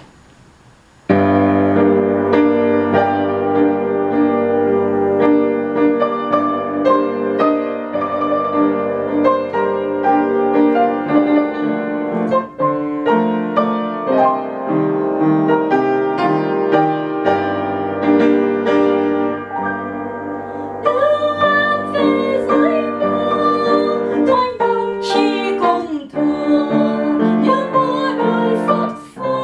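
Upright piano playing a slow, gentle waltz, starting about a second in and growing fuller and brighter about twenty seconds later.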